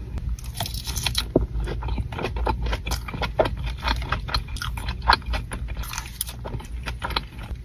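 A person biting and chewing crunchy food close to the microphone: a steady run of irregular crunches and crackles.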